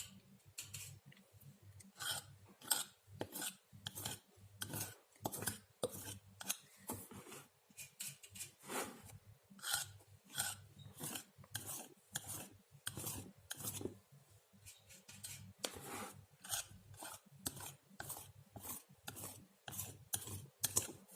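Painting knife scraping and spreading thick acrylic paint across a board canvas in short repeated strokes, a faint scratchy rasp about one to two times a second.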